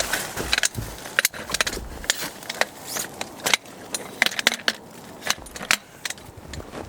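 Irregular sharp clicks and crunches of camping gear being handled while a tent is pitched in snow.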